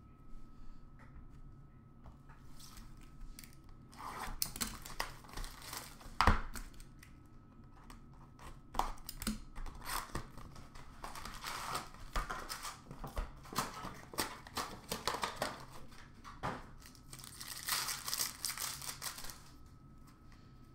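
Trading card packs being torn open and their wrappers crinkled, with cards handled and shuffled: irregular crackling and rustling that starts about four seconds in and stops near the end. A sharp snap about six seconds in is the loudest sound.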